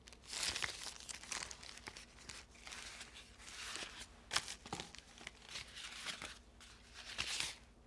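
Plastic bags crinkling and rustling as hands rummage through a cardboard box, in irregular bursts with small knocks of objects being moved, the sharpest about four seconds in.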